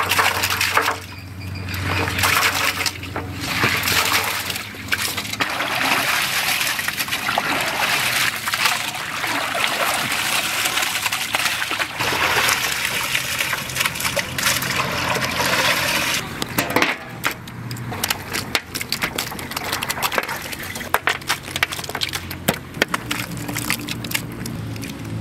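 Water running and splashing as raw goat liver is washed by hand in a vessel. The wash is dense for the first two-thirds, then turns into lighter, broken splashes and clicks.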